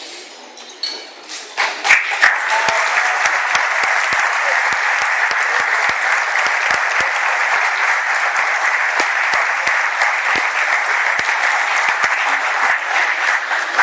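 Audience applauding: dense clapping that starts about two seconds in and tails off near the end.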